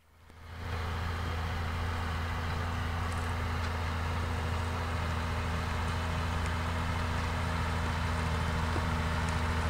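Massey Ferguson tractor's diesel engine running steadily under load while pulling a disc harrow through stubble, fading in over the first second.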